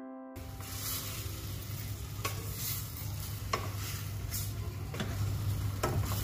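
A spoon stirring chicken pieces in a stainless steel pan over a sizzle, with a few short clinks and scrapes of the spoon against the pan.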